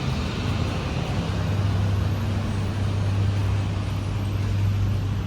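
City street traffic noise with a steady low engine hum from a nearby road vehicle running.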